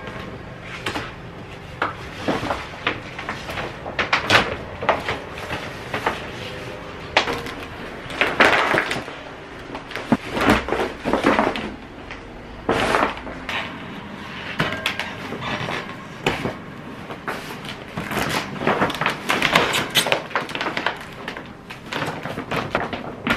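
Clear plastic sheeting crinkling and rustling in irregular bursts as it is pulled off a metal balcony railing and bunched up.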